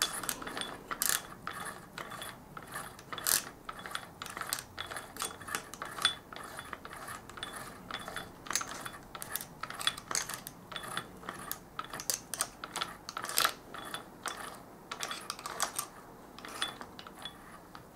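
Irregular light clicks and metallic ticks from a BMW F650GS gearbox being oiled before the crankcase halves are closed. A pump oil can clicks as it squirts oil onto the gears, and a gear shaft is turned by hand in the open case half.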